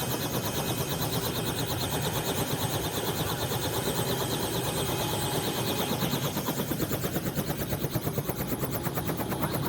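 Helicopter running on the ground at close range, its rotor blades chopping in a rapid, even pulse with a thin, steady high whine over it; loud, heard without a headset.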